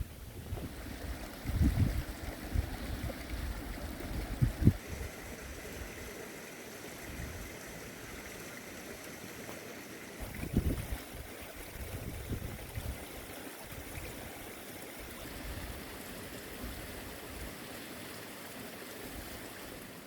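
Steady rush of running water, with wind buffeting the microphone in low gusts about 2, 4.5 and 10.5 seconds in.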